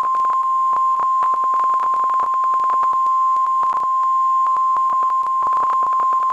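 NOAA Weather Radio warning alarm tone: a steady single 1050 Hz tone announcing a severe thunderstorm warning, broken by frequent crackling clicks of reception static.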